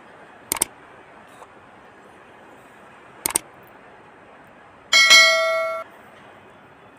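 Two sharp double clicks, then a loud bell-like metallic ding that rings for almost a second and cuts off suddenly, over a steady faint hiss.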